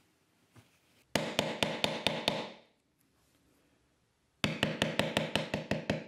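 White poly maul tapping a steel leather-tooling stamp into the leather on a stone slab, in quick even runs of about six or seven light strikes a second. A run of about a second and a half comes about a second in, then a pause, and a second run starts past the middle and keeps going.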